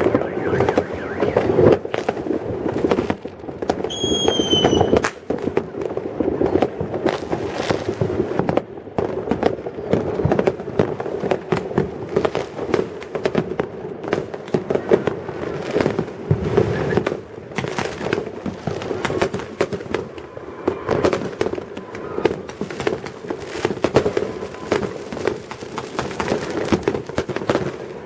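A dense, continuous barrage of New Year fireworks and firecrackers: overlapping bangs and crackles with no let-up, and a short falling whistle about four seconds in.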